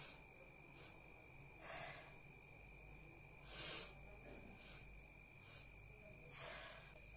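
A woman sniffing sharply through her nose three times, a couple of seconds apart, her nose burning from red chilli powder as she tries and fails to bring on a sneeze.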